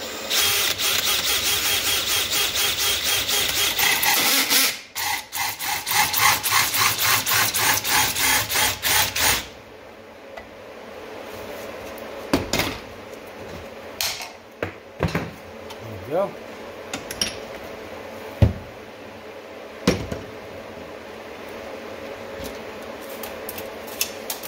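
A cordless DeWalt drill runs a 2-inch hole saw through 3-inch PVC pipe, a loud whirring cut with a regular pulsing and a short break about four and a half seconds in. It stops at about nine and a half seconds, and a few scattered knocks and clatters follow as the drill and pipe are handled.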